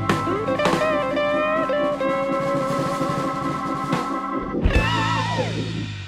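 Background rock music: electric guitar playing a melody with bends and vibrato over drums. Near the end a last guitar phrase slides down and the music stops.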